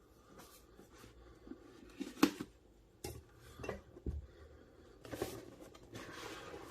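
Hard parts of a soldering station and its packaging being handled: scattered light knocks and clinks, the loudest a sharp clink about two seconds in, with rustling near the end.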